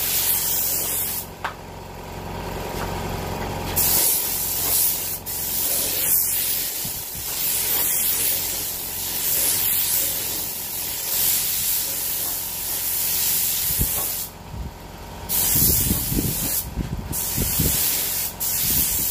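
Air spray gun spraying paint onto a plastic motorcycle panel in quick passes for a first light coat: a steady hiss that drops off briefly a few times between passes.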